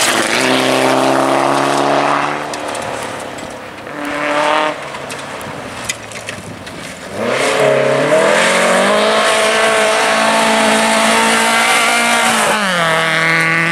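Rally car engine under hard throttle. It eases off about two and a half seconds in, blips briefly, and goes quieter for a few seconds. From about seven seconds in it revs back up and holds, with a gear change near the end where the pitch drops and then holds again.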